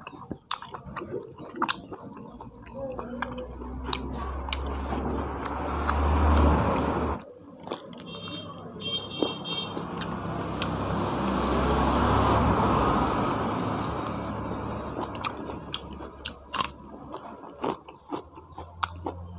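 Close-miked chewing and biting of pork curry and rice eaten by hand, with many sharp wet mouth clicks. Behind it a broad rushing noise swells twice: the first cuts off suddenly about seven seconds in, the second rises and fades around the middle.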